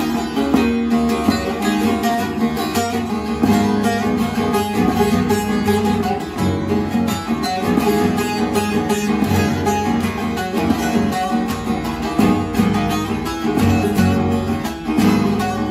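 Bağlama (saz) with a mulberry bowl and spruce soundboard, played with a plectrum: a fast-picked folk melody with rapid, dense strokes over ringing strings.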